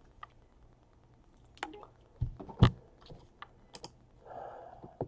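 Stack of trading cards being handled and shuffled in the hand: scattered light clicks and taps of card edges, a louder knock about two and a half seconds in, and a short rustle of card stock near the end.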